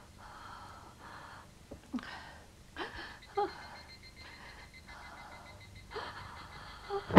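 A girl's heavy, uneven breathing with soft gasps in a troubled sleep, each breath rising and falling about once a second. A faint high steady tone runs behind from about three seconds in.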